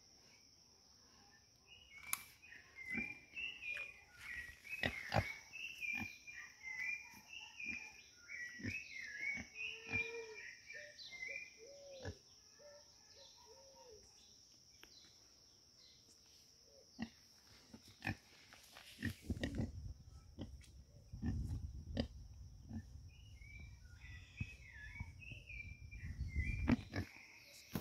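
Domestic pigs grunting, squeaking and snuffling at close range, in irregular bouts with a lull in the middle. Insects buzz steadily underneath.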